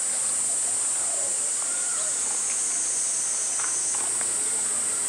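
A steady, high-pitched insect drone, with faint distant voices and a few short chirps underneath.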